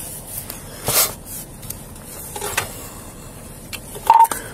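Fabric rubbing and scuffing against a body-worn camera over the steady hum of a moving car, with a sharp knock about a second in and a short beep near the end.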